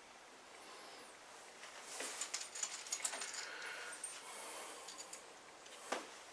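Faint clinks and rattles of small metal parts being handled, in scattered bursts from about two seconds in, with a single knock near the end.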